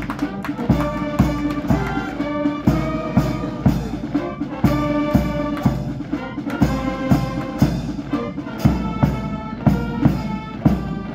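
Brass band playing a military march: trumpets and trombones over a steady drum beat of about two strokes a second.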